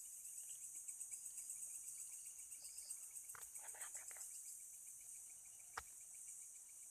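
Insects chirping in a steady, fast-pulsing high trill, with one sharp click about six seconds in.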